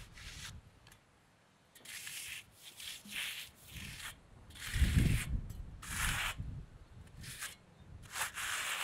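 Steel hand finishing tool scraping over wet concrete in a series of short strokes, about one a second, working cream up to the slab's edge. A low thud about five seconds in is the loudest sound.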